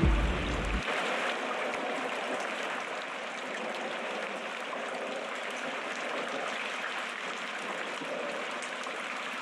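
Steady rain falling, an even hiss with scattered drips. There is a brief low rumble in the first second.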